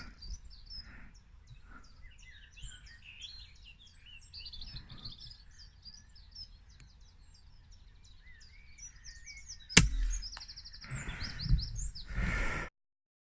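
Birds chirping and singing in the background, then about ten seconds in a single sharp crack, the shot of an FX Impact .25 PCP air rifle. A couple of seconds of rough noise follow, and the sound cuts off abruptly near the end.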